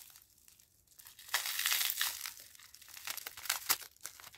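Parcel packaging crinkling and rustling as it is handled and pulled at to open it, with short crackles, starting about a second in.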